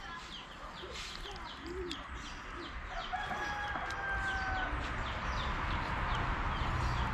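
A rooster crowing, one held call starting about three seconds in, while small birds chirp throughout.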